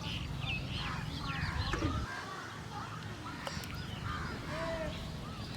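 Several birds calling outdoors, many short chirps and rising and falling calls overlapping. Under them is a low rumble that stops about two seconds in.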